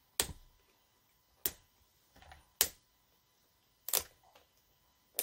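Sharp hard-plastic clicks from a 3-liter Funko Soda bottle as it is pressed down to open it: about five, a second or so apart.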